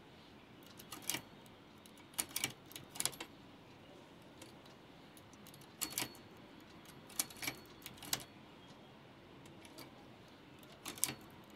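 Scattered sharp metallic clicks and clinks, mostly in little groups of two or three, as hands move stitches on a flatbed knitting machine's metal needle bed with a transfer tool.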